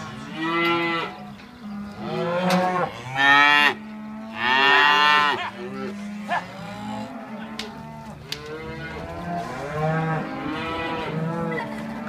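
A herd of young cattle mooing, many calls overlapping one over another, with two loud drawn-out bellows about three and four and a half seconds in.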